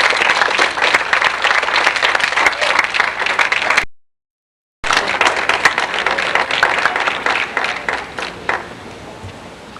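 Audience applauding an award winner, a dense patter of many hands clapping. The sound drops out completely for about a second partway through, then the applause resumes and dies away near the end.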